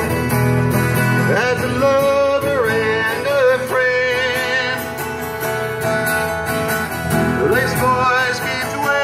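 Live music from two acoustic guitars played together. A melody line slides up into long held notes about a second and a half in, and again near the end.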